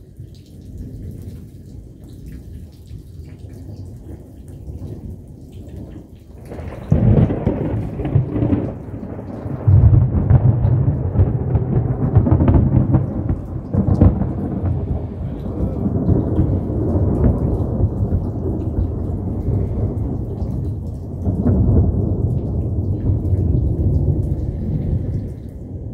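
Thunder over steady rain: a sudden crack about seven seconds in, then long, loud low rumbles that swell again later and die down near the end.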